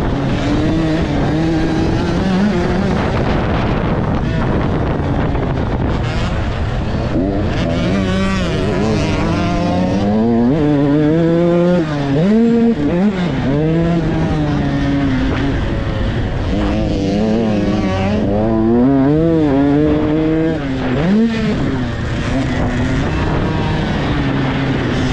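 Dirt bike engine at racing revs, its pitch climbing and dropping again and again as the throttle opens and closes through the gears, with wind rushing over the microphone.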